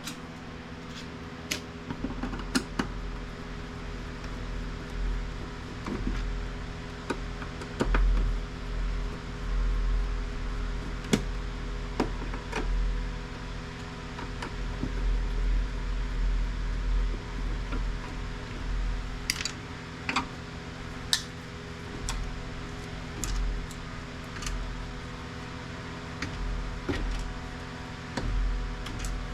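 Scattered clicks and knocks of plastic and metal printer parts being handled and pried apart, with low thumps now and then, over a steady hum.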